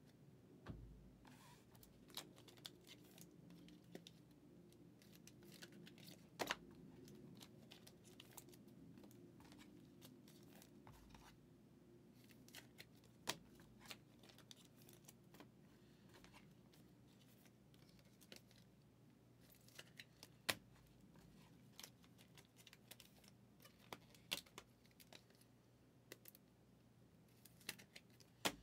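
Faint handling of trading cards: scattered small clicks and snaps as cards are sorted in the hands, about five of them sharper, over a low steady hum.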